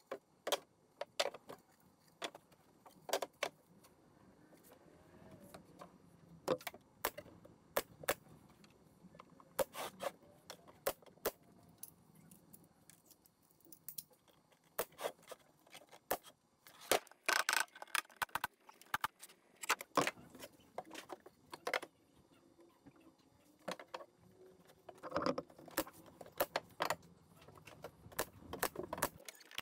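Irregular sharp clacks and knocks of plywood panels being handled and fastened, with a pneumatic brad nailer shooting brads into the plywood, the shots bunched in quick runs about halfway through and again near the end.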